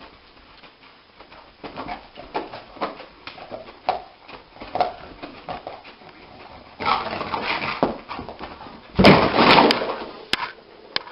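Sleeping dog whimpering and giving short muffled yips as it dreams, a series of brief sounds, followed by two louder, longer noisy stretches in the second half.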